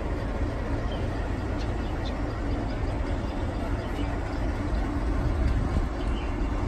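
Diesel locomotive engine running as the locomotive moves slowly along the track, a steady low rumble with a constant hum.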